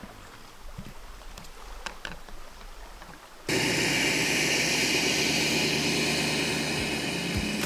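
After a few seconds of faint outdoor quiet with small clicks, the steady noise of a pickup truck carrying a camper comes in suddenly and holds: engine and tyres rolling over gravel as it drives past.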